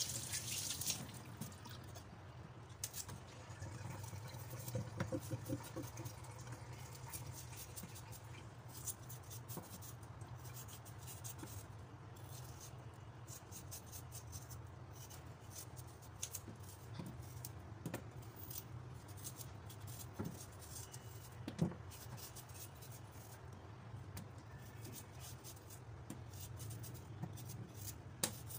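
A knife scraping and peeling the skin off fresh ginger root over a stainless steel sink: many small scrapes and clicks, with a louder knock about two-thirds of the way through. Tap water runs briefly at the start, over a low steady hum.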